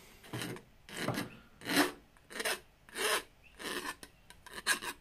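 Round file rasping back and forth on the cut inner edge of a composite steel adaptor plate, smoothing off rough cut edges. The strokes come in a steady rhythm, about eight of them, roughly one and a half a second.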